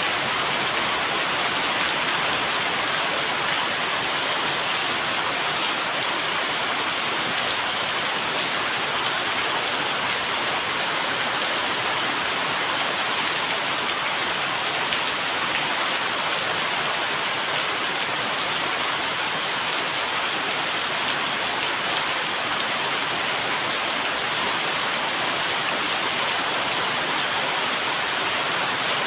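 Steady rain falling in an even, unbroken hiss, with no thunder.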